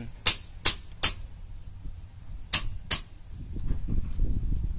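Sharp hand-hammer blows on hard material at the bottom of an earthing pit: three quick strikes, a pause, then two more, over a low rumble.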